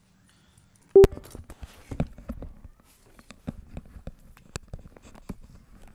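Handling noise of a headset microphone being picked up and put on: a loud knock about a second in, then a string of small clicks, taps and rustles.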